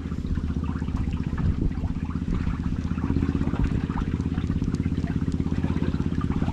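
A small engine running steadily with a low, rapid pulse, its note shifting slightly about three seconds in.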